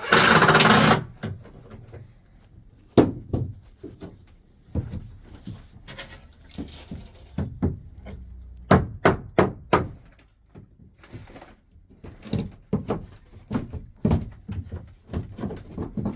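A loud, noisy burst for about a second at the start, then irregular knocks and thunks, some in quick runs, as of wooden and other pieces being handled and set down.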